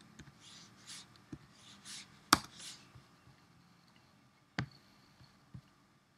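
Computer keyboard being typed on: a run of soft key taps with one sharp, louder key press a little past two seconds in. Two short mouse-button clicks follow later.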